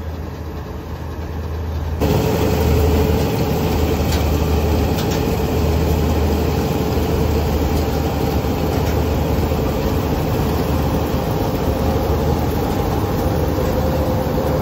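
Combine harvester running while it cuts paddy: a steady engine drone with a low hum and a steady whine above it. It jumps sharply louder about two seconds in and then holds steady.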